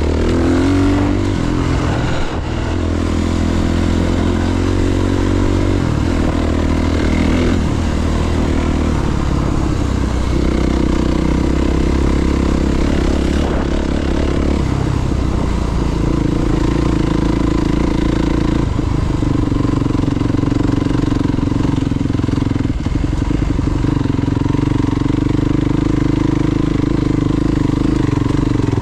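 Honda CRF300RX enduro motorcycle's single-cylinder four-stroke engine being ridden. Its note rises and falls with the throttle through the first half, then holds a steady pitch from about halfway on.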